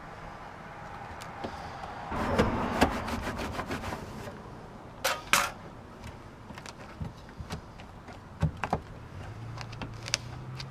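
Work on old plywood panels: a couple of seconds of rough scraping and rasping, then two sharp knocks and a scatter of clicks and clatter. A low steady hum comes in near the end.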